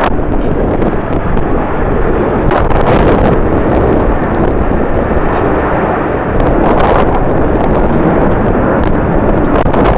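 Strong gusty wind buffeting the microphone, mixed with the loud roar of jet airliner engines, swelling in gusts about three and seven seconds in.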